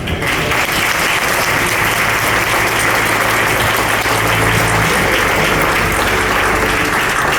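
Congregation applauding steadily, starting abruptly right after the new pastor is announced.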